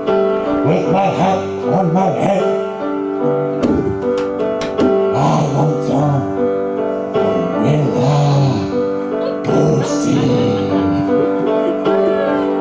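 Live jam music: a man's low voice singing or chanting into a microphone over held keyboard chords.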